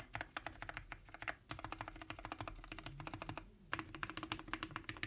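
Typing on a custom 60% mechanical keyboard with lubed and filmed milky-top Gateron Yellow linear switches, a polycarbonate case and plate, and PBT keycaps: a fast run of keystroke clacks, broken by two short pauses, the longer just over three seconds in.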